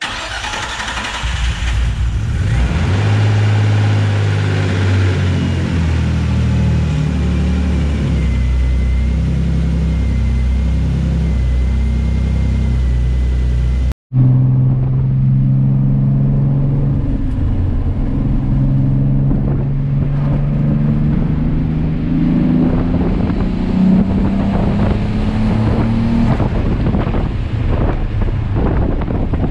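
Twin-turbo Nissan 350Z's V6 engine running, its note shifting up and down in steps. After an abrupt cut about fourteen seconds in, it runs on with its pitch rising slowly.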